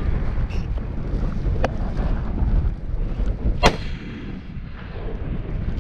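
A rifle shot on the range about two-thirds of the way in, a sharp crack with a trailing echo, and a fainter crack earlier, over low wind rumble on the microphone.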